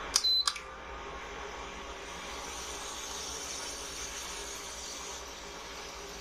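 Lifelong induction cooktop beeps once as its button is pressed, then its cooling fan runs with a steady hiss as it heats: the unit working again after its shorted IGBT was replaced.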